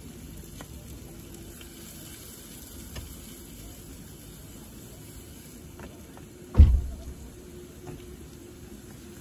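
A single heavy thump about two-thirds of the way through, with a few faint clicks and knocks over a steady background hiss.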